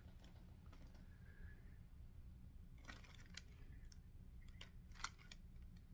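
Near silence over a low steady hum, with a few faint soft clicks and rustles from a pair of stretchy underwear being handled; the clearest click comes about five seconds in.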